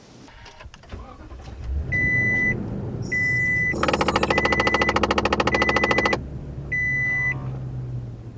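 A rapid, even clicking from behind the dashboard of a 2020 Toyota Tundra, lasting about two and a half seconds, over a low steady hum that starts about a second in. A dashboard chime beeps five times around it. The clicking was traced to a rats' nest packed into the HVAC air intake down to the cabin filter, just above the blower fan.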